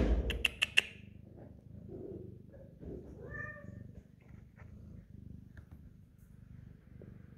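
Steady low purring from a mother cat nursing her very young kittens, with a brief high kitten mew about three seconds in. A few sharp clicks come near the start.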